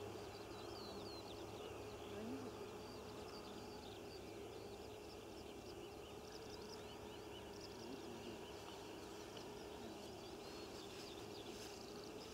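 Faint open-field ambience: many small bird chirps and twitters throughout, over a steady background hiss.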